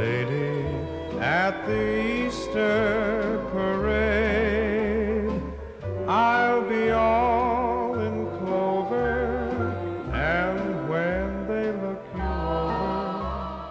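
Background music: a wavering vibrato melody over a bass line that moves in steady blocks.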